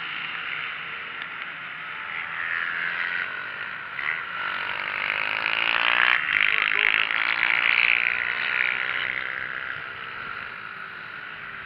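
Mini GP racing motorcycles running past, several engines rising and falling in pitch. The sound builds to its loudest about six to eight seconds in as a group goes by, then fades.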